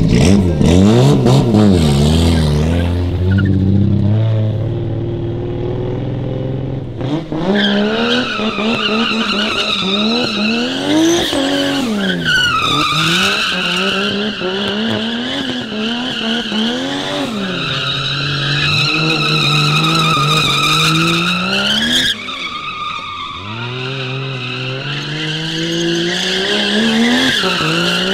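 Nissan Silvia S14 drift car with a 1JZ-GTE turbo straight-six, revving up and down as it drifts. From about seven seconds in, its rear tyres squeal in a long, wavering howl over the engine, with a short break a little after twenty seconds.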